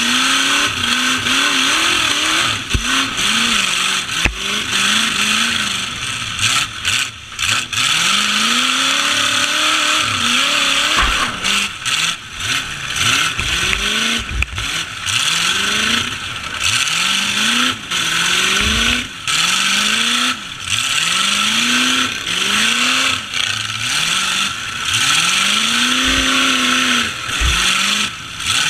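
Truck engines revving hard again and again, each rev rising and falling over a second or two, with several thumps among them.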